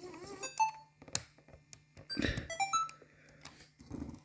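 JVC GR-D290U camcorder beeping electronically as it powers up: a short run of tones about half a second in and a rising run of stepped beeps a couple of seconds later, among clicks and knocks from handling the camcorder's body.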